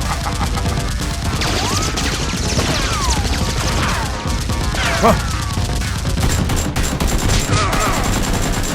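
Rapid gunfire sound effects in dense volleys, with whizzing sweeps that rise and fall in pitch, over background music.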